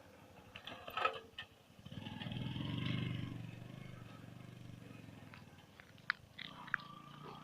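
A motor vehicle passing by, its engine sound swelling to a peak and fading over a couple of seconds, with a few sharp clicks.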